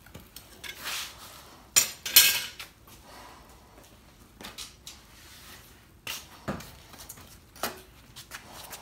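Metal clanks and clinks of foundry tools being handled around a freshly poured copper casting: two loud clanks about two seconds in, then scattered lighter clinks.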